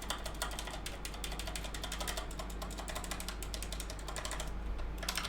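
Ajazz K870T mechanical keyboard with brown switches and lubed stabilizers, its keys pressed in a fast run of clicks with a short lull near the end. The lubed stabilizers keep the keys from rattling.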